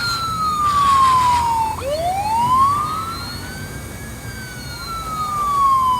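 Siren sound effect from a Huina 561 remote-control model fire truck, a wailing tone that slowly rises and falls about every four seconds. A brief hiss sounds under it about a second in.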